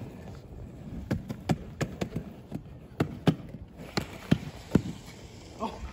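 A skateboard and shoes hitting the asphalt during a flip-trick attempt: about a dozen sharp, irregular clacks and slaps spread over three or four seconds.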